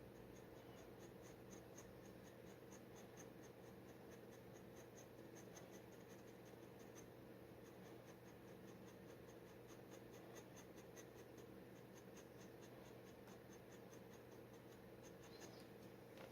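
Faint scratching of a steel G-nib dip pen on paper: a quick, even run of short strokes, as in hatching, with a steady low hum underneath.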